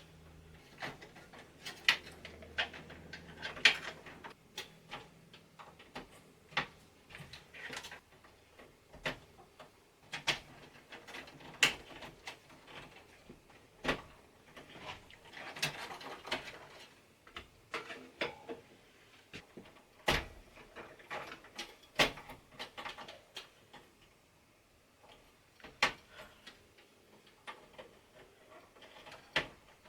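Irregular clicks, taps and light knocks of SATA cables and their plastic connectors being routed and plugged into drives inside a desktop PC case, with a brief rustle of cables about halfway through.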